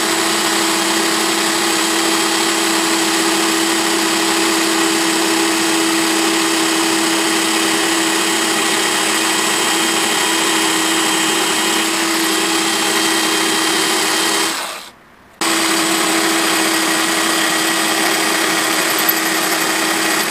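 Electric drill running steadily with a 10 mm tile drill bit grinding through a ceramic tile: a constant motor whine over a gritty hiss. The drill stops for a moment about fifteen seconds in, then runs on.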